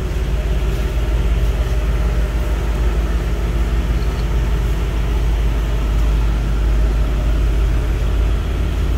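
Large Hyster forklift's engine running steadily as the truck drives slowly with a heavy CNC lathe on its forks.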